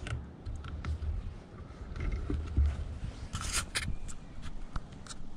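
Crossbow being handled and reloaded, heard through the camera mounted on it: scraping, rubbing, and low knocks, with a quick run of clicks about three and a half seconds in.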